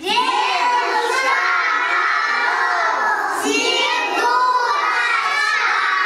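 A group of small children shouting together, many voices at once.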